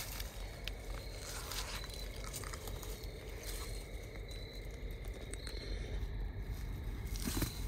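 Footsteps crunching irregularly through dry leaf litter, with branches and brush scraping against clothing as people push through thick undergrowth.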